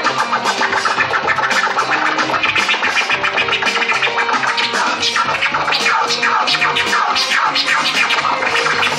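DJ scratching on a turntable record over a backing beat with a bass line: rapid back-and-forth scratches sweeping up and down in pitch, continuous throughout.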